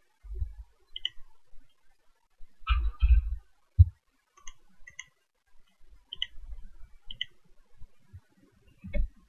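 Computer mouse clicking, about six single clicks spread a second or so apart, mixed with low dull thumps, the loudest a few seconds in.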